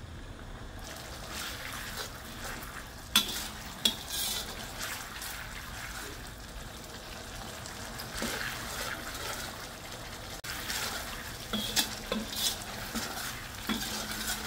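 Ground chilli paste sizzling and bubbling in a stainless steel wok while a metal spoon stirs and scrapes through it, with a few sharp clinks of the spoon against the wok. The paste is being fried with a little water until the chilli is fully cooked.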